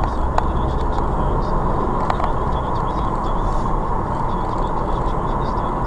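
Steady road and engine noise heard inside a car's cabin as the car picks up speed.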